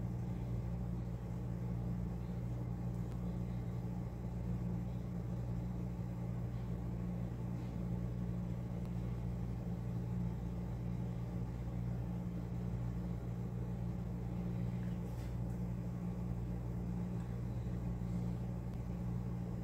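Steady low hum with no distinct events.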